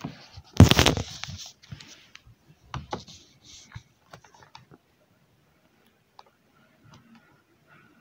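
A frying pan clattering onto a gas burner, followed by scattered light clicks and scrapes of a utensil stirring chopped red onions in olive oil, thinning out to faint ticks after about five seconds.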